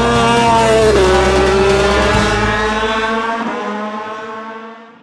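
Honda MotoGP production racer's V4 engine at high revs, its pitch rising and then dropping about a second in before holding steady and fading out near the end.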